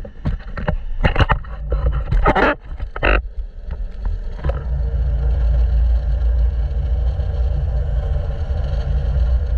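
Sportfishing boat under way while trolling: the engine gives a steady low drone, with wind and water noise over it. In the first few seconds there is a run of knocks and clattering, with two louder rushes of noise about two and three seconds in.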